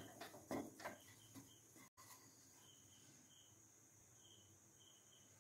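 Wooden spatula stirring crumbled egg podimas in a nonstick pan: a cluster of quick knocks and scrapes over the first two seconds. After that, only a faint hiss with a few short high chirps.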